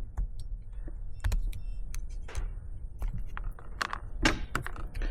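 Scattered light clinks and knocks of small metal parts being handled, over a steady low rumble.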